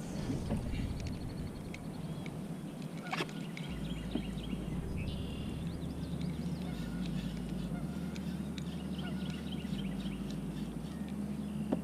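Geese honking repeatedly, with a couple of sharp knocks.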